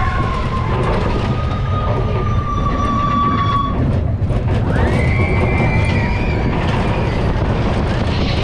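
Mine-train roller coaster cars running along the track with a steady rumble, and two long high wheel squeals: one from about half a second in to nearly four seconds, another starting about five seconds in.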